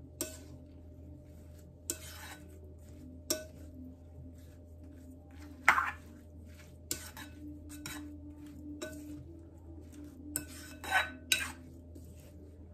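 A spoon stirring beaten eggs and chopped vegetables in a bowl, knocking against the side of the bowl in scattered clinks, the loudest about halfway through.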